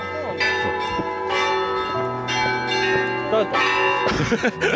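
Church bells ringing, several strikes about a second apart with each ringing on into the next.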